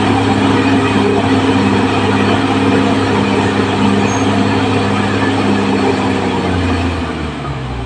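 Caterpillar D6R XL bulldozer's diesel engine running steadily, its note dropping lower about six and a half seconds in as the revs fall.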